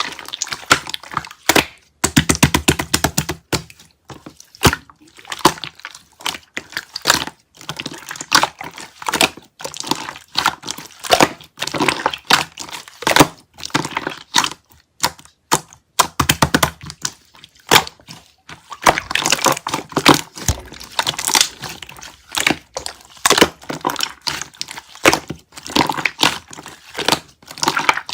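Clear slime being squeezed, folded and pressed by hand, giving irregular wet clicks and pops, with a few runs of rapid crackling clicks.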